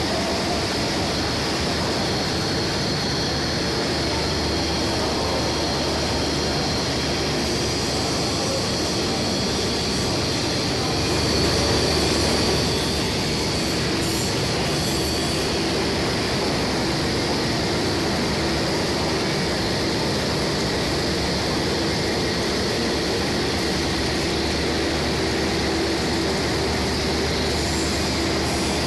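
Cucumber processing line machinery running: a steady mechanical din with a constant hum, swelling slightly about halfway through.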